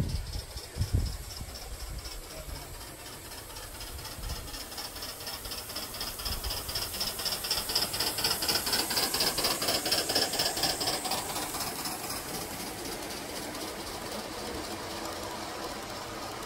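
Gauge One live-steam model locomotive passing, its exhaust chuffing in a rapid, even beat that is loudest about eight to eleven seconds in. Freight cars then rattle along the track behind it. There are a couple of low thumps near the start.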